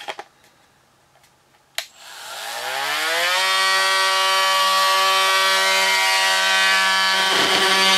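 Milwaukee M18 oscillating multi-tool switched on with a click, its motor winding up in a rising whine over about a second and then running steadily at one pitch, on its low setting while powered from a laptop AC adapter instead of a battery.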